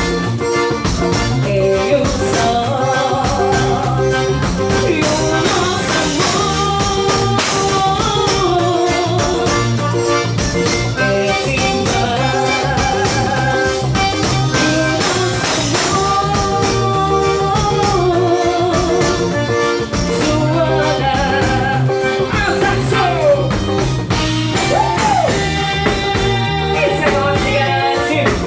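Live forró music: a woman singing through a microphone and PA over a piano accordion and the band, playing without a break.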